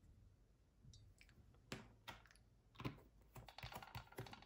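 Faint clicks and taps of a small plastic paint bottle being handled and set down on the work surface: a couple of single clicks, then a quick run of small ticks near the end.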